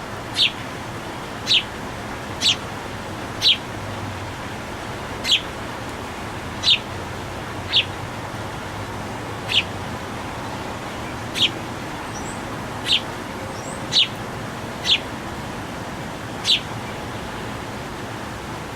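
A songbird repeating a single sharp, downward-slurred chip call about once a second at an uneven pace, over steady background noise.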